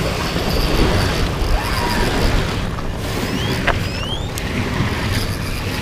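Wind buffeting the microphone with a rough, steady rumble, with a few short rising chirps a little past halfway through.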